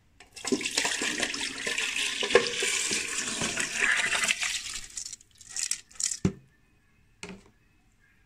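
Wet washed rice poured into a rice-cooker pot of pandan coconut milk: a rushing, splashing pour lasting about five seconds, followed by a few short knocks and scrapes near the end.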